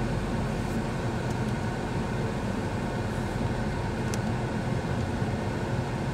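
Steady cabin hum of the 1998 Plymouth Voyager's idling engine and climate-control fan, heard from inside the van, with faint clicks of the radio's buttons being pressed, the clearest about four seconds in.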